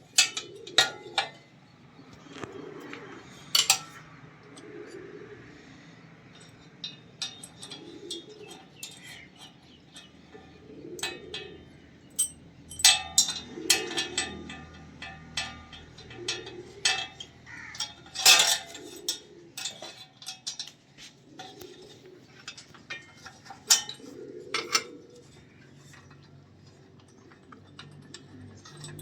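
Irregular sharp clinks and taps of metal hand tools against metal parts, some single and some in quick clusters. A soft cooing repeats every second or two behind them.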